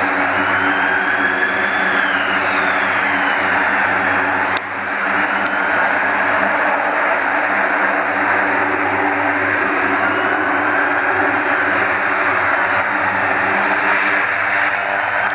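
Four-engine Lockheed Martin C-130J Super Hercules turboprops (Rolls-Royce AE 2100) running as the aircraft taxis and turns on the runway: a steady propeller drone with whining tones that bend slowly up and down. A brief click with a short drop in level comes about four and a half seconds in.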